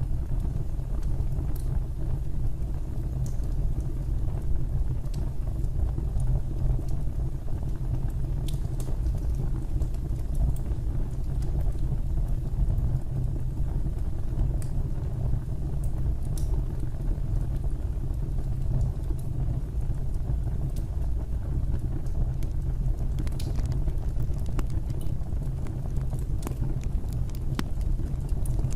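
Wood fire burning in a fireplace: a steady low rumble of flames with sparse, scattered crackles and pops.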